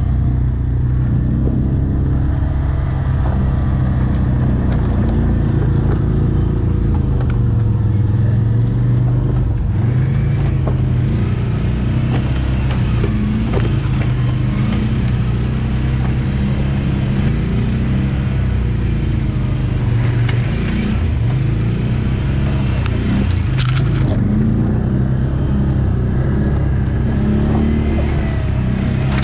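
Quad (ATV) engine running under changing throttle while riding over rough ground, its pitch rising and falling. A brief sharp clatter near the end.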